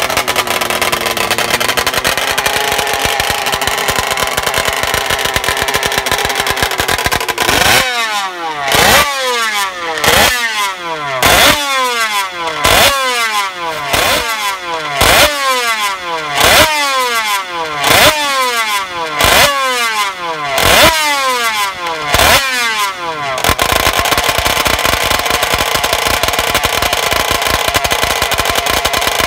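König 500 cc two-stroke flat-four racing motorcycle engine running steadily, then blipped about a dozen times a little over a second apart, the revs dropping away after each blip, before it settles back to a steady run near the end.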